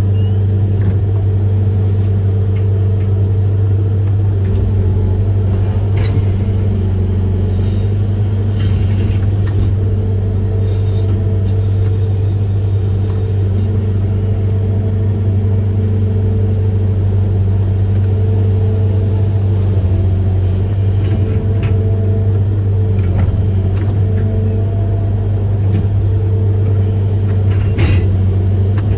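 Amphibious excavator's diesel engine running at a steady, even drone, with a few short knocks scattered through.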